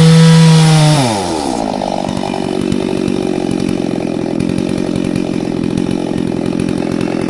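Chainsaw at full throttle that is let off about a second in, its engine note falling to a lower, uneven idle that carries on.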